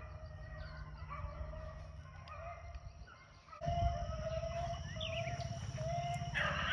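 A pack of rabbit hounds baying while running a rabbit: many short, overlapping bawls repeated throughout. A low rumble comes in about halfway, and there is a brief rustle near the end.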